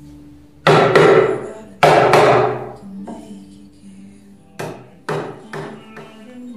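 Mallet blows knocking the turned legs and stretchers of a Windsor-style chair together in their joints: two pairs of heavy knocks about a second in and near two seconds, then three lighter knocks a couple of seconds later. Background music plays underneath.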